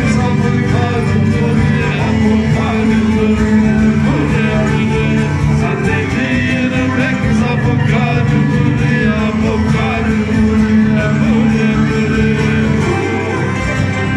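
Live Black Sea folk dance music: a bowed kemençe carrying the melody over a strummed acoustic guitar and a plucked string instrument, playing steadily without a break.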